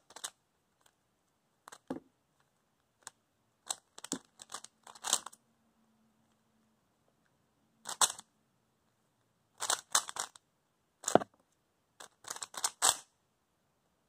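Stickerless plastic Rubik's-type cube being turned by hand during a solve: short bursts of quick clicking and clacking as the layers snap round, with pauses in between.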